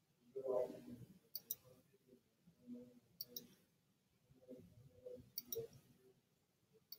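Quiet computer mouse button clicks, three double clicks about two seconds apart, placing points with a drawing tool. A faint low sound comes about half a second in, with quieter low murmurs between the clicks.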